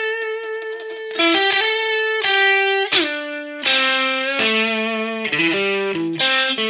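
Overdriven electric guitar playing a slow, free-time blues lead lick, one note at a time. Some notes are held and ring on, and one slides down about three seconds in.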